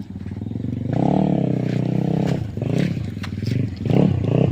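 Old motorbike engine running rough, revving up and dropping back several times with uneven rises and dips in pitch: coughing after being ridden through mud.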